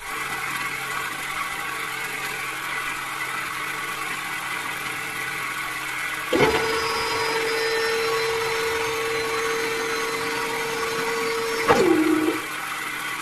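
Small DC motors of a miniature toy drilling rig whirring steadily. About six seconds in a steady hum joins with a click, and near the end it stops with a click, dropping in pitch as it winds down.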